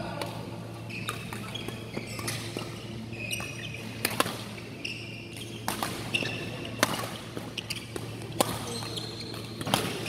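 Badminton rally: sharp racket strikes on the shuttlecock every second or two, with sneakers squeaking on the court mat between them, over a steady low hum.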